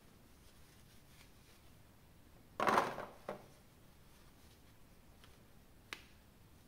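Packaging and parts being handled: a short rustling knock about two and a half seconds in, a smaller one just after it, and a single light click near the end.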